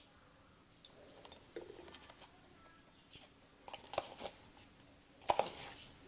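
Scattered small clicks and taps from handling a plastic lid and containers while working the slime mixture, the loudest knock about five seconds in.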